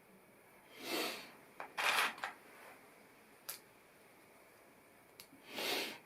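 Handling noise: three brief rustles, with a few sharp clicks between them.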